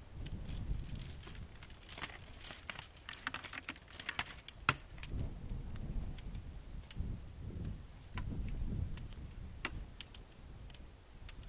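Shock-corded tent pole sections clicking and clinking together as the pole is unfolded and assembled, with one sharper snap about halfway through. Wind rumbles on the microphone.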